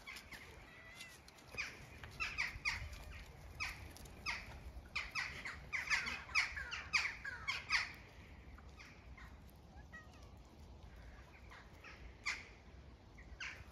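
Crows cawing: a quick, irregular run of short harsh calls through the first eight seconds, then a few scattered calls near the end.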